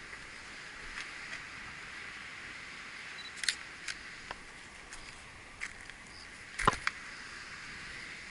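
Handling noise from a handheld camera: scattered sharp clicks and light knocks over a steady faint hiss, with one louder knock about six and a half seconds in.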